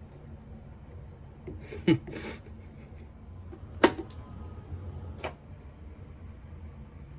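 A few separate knocks and clinks of hard objects being set down or handled, the sharpest about four seconds in, with a short high ring after the last one. A low steady hum sits underneath.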